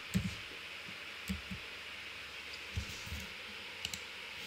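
About half a dozen slow, irregular keystrokes on a computer keyboard, each a faint tap with a low thud.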